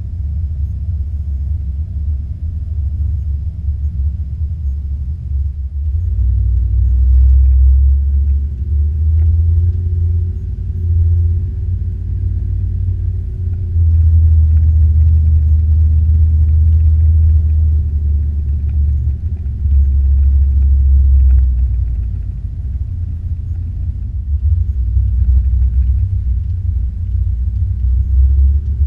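Dodge Ram pickup's engine and exhaust drone heard from inside the cab while driving, a deep rumble that swells louder several times as the truck pulls away and accelerates, then eases off. The truck has a newly fitted exhaust.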